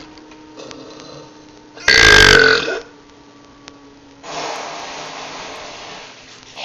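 A person's loud burp, short, croaky and pitched, lasting under a second about two seconds in. A quieter steady hiss follows for about two seconds near the end.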